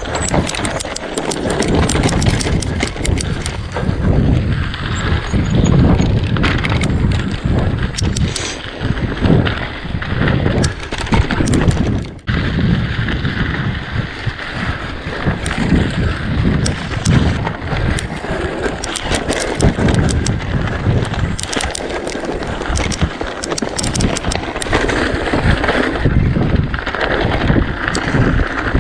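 Mountain bike ridden fast over rough moorland single track: tyres rumbling on dirt and stones while the bike rattles and clatters with constant sharp knocks, under wind noise on the microphone.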